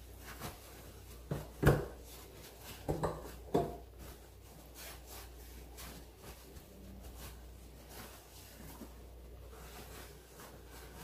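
Dishes being handled at a sink: about five sharp knocks and clinks in the first four seconds, the loudest about a second and a half in, then faint rubbing and handling.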